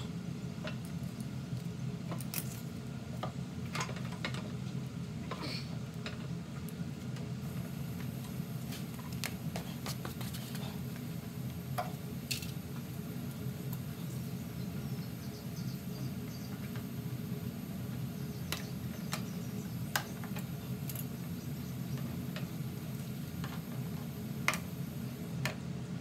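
Scattered small clicks and light taps of pliers and metal parts being handled on a mower engine as its linkage and fuel tank are refitted, over a steady low hum.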